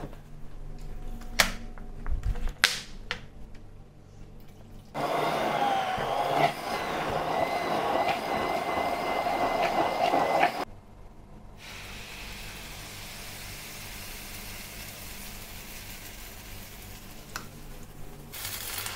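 Pancake batter being made: a few sharp clinks in the first seconds, then a loud steady rushing sound for about six seconds that stops abruptly, then a quieter steady hiss.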